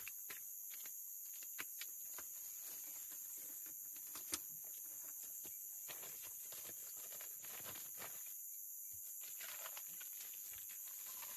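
Steady high-pitched chorus of night insects, with footsteps in flip-flops scuffing on a dirt floor and one sharp click about four seconds in. A plastic bag rustles near the end.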